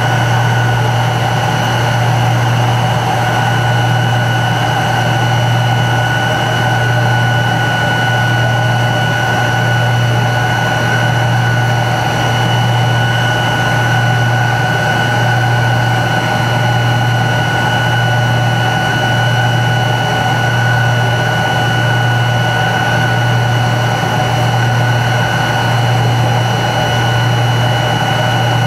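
Steady idling hum of a Tupolev Tu-134B-3 jet airliner, heard inside the cabin while the aircraft stands still: a loud low drone that beats slowly and evenly, about once every second and a half, with a high steady whine over it.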